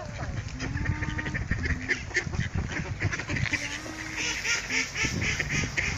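A flock of mallard ducks quacking and chattering, with a dense run of calls from about three and a half to five seconds in.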